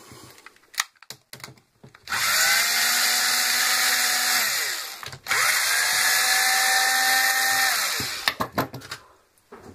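Bosch cordless drill/driver unscrewing the housing screws of a rotary hammer: two runs of about two and a half seconds each, the motor spinning up, running steadily, then winding down, with light clicks of handling before and after.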